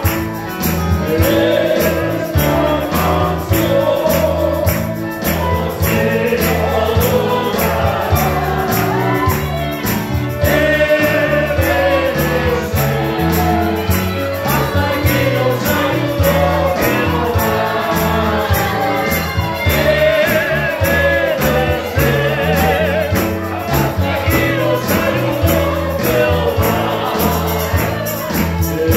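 Live Christian praise music: voices singing a melody over a band with a steady drum beat and a moving bass line.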